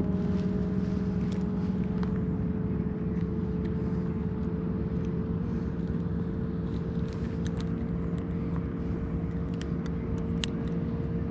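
A motor running steadily, a held hum whose pitch rises slightly over several seconds, with a few light clicks on top.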